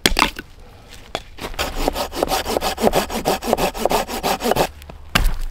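Silky hand saw cutting through a dead wooden branch in quick, even push-pull strokes for a few seconds. A sharp knock comes at the very start, and a dull thump follows shortly after the sawing stops, near the end.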